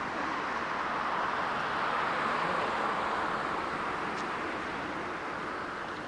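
Jet airliner engines passing by, a broad noise that swells to its loudest about two seconds in and then slowly fades away.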